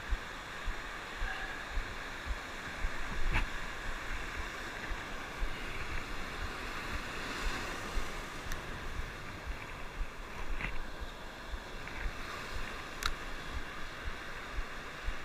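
Ocean surf washing and breaking over a rocky shoreline, with wind buffeting the microphone. A few short faint clicks stand out now and then.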